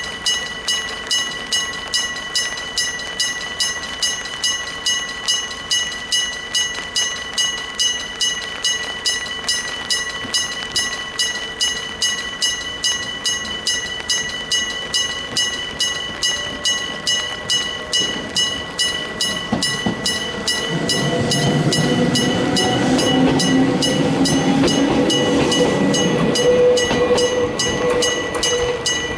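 Electric bell of a Japanese railway level crossing ringing in steady strokes about twice a second. From about 19 seconds in, a Gakunan Railway electric train comes up and passes over the crossing, its running noise rising loud over the bell and easing near the end.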